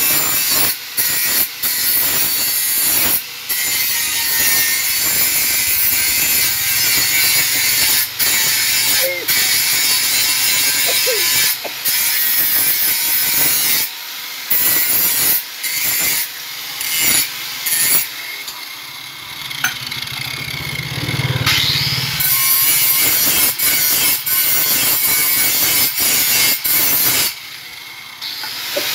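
Handheld angle grinder grinding a steel knife blade: a loud, rasping hiss cut by many brief breaks as the blade comes off the disc, with a quieter stretch a little past the middle.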